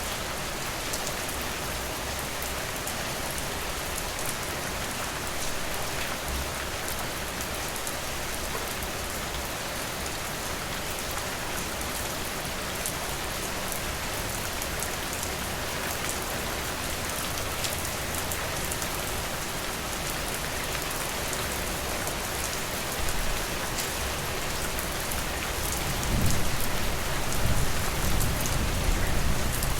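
Steady rain, with the fine taps of single drops heard through it. Near the end a low rumble of thunder swells up and becomes the loudest sound.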